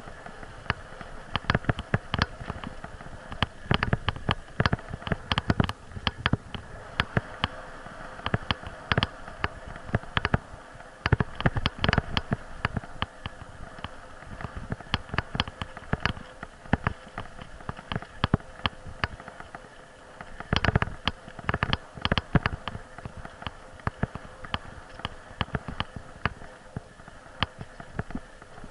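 Bicycle rolling over a bumpy dirt forest track: a camera mounted on the bike rattles and knocks irregularly, several sharp clicks a second, over steady tyre and rolling noise.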